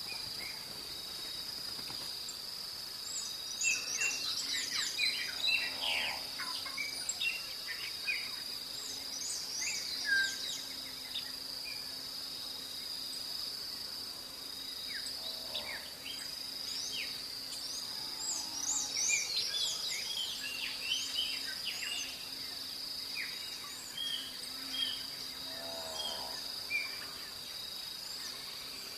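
Dawn birdsong: several small birds chirping and whistling in scattered bursts over a continuous, steady high insect trill.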